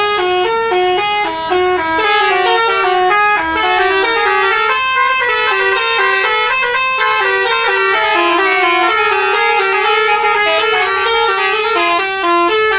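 Basuri telolet multi-tone bus horn playing a fast, unbroken tune of short stepped notes that run up and down through its horn tones.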